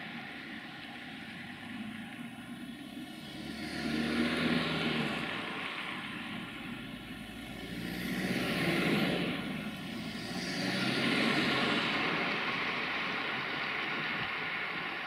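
060-EA electric locomotive running slowly, a steady hum with several held tones. A louder rushing sound swells and fades about four, nine and eleven seconds in.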